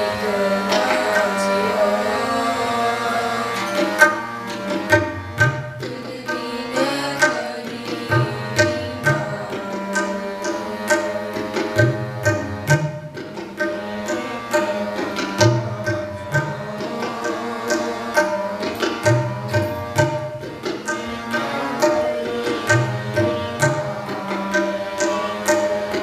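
Harmonium playing a kirtan melody, joined about four seconds in by tabla keeping a steady rhythm. The low bayan strokes bend up and down in pitch.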